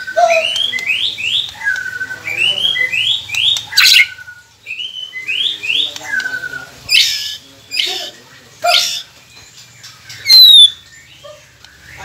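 A white-rumped shama sings quick groups of two or three short rising whistles, with some lower falling notes between them. The song is broken by loud, harsh, noisy notes, and the loudest of these comes near the end.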